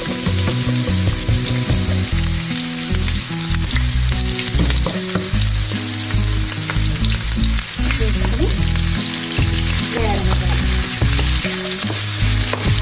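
Chopped onion and green chillies sizzling steadily as they fry in hot oil in a frying pan, stirred with a spatula.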